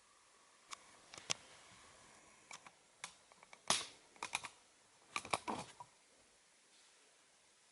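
Fire in a fireplace crackling: an irregular scatter of sharp pops and clicks, some in quick clusters, over a faint steady hiss.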